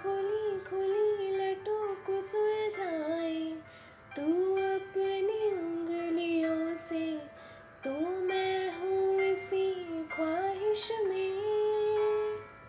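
A woman singing a slow Hindi film-song melody in long held notes over an instrumental backing track. The voice comes in several phrases with short breaks between them.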